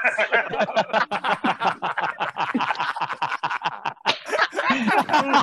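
Hearty laughter in rapid bursts, with hand claps mixed in.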